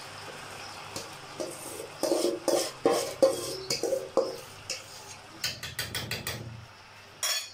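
A metal spoon scraping and knocking against a metal bowl and an aluminium pan as a thick marinade paste is scraped out over chicken pieces, with a quick run of about six taps shortly before the end.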